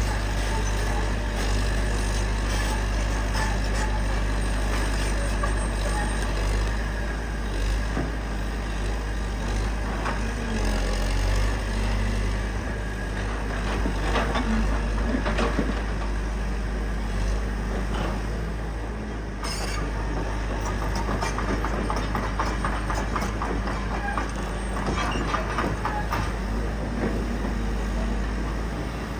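Excavator's diesel engine running steadily under load, with irregular clanks and rattles over it throughout.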